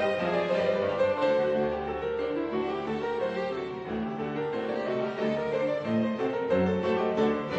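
Background music: instrumental classical-style music with keyboard and bowed strings.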